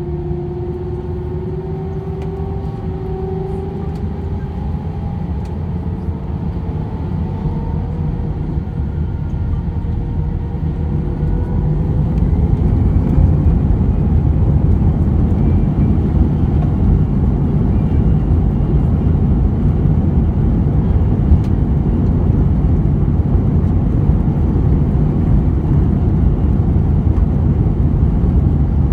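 Airbus A320's jet engines heard from inside the cabin, spooling up for takeoff with a rising whine, then a loud steady roar and low rumble as the aircraft accelerates down the runway on its takeoff roll. The sound grows louder about twelve seconds in.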